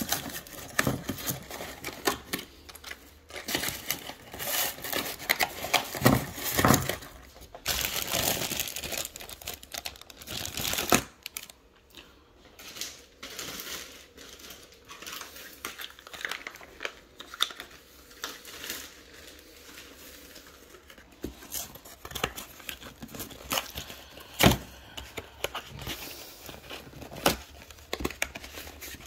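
Plastic packaging and paper crinkling and rustling as small parts are handled and searched through, busiest for the first ten seconds or so. After that the handling is quieter, with a few sharp taps, one loud one about three-quarters of the way through.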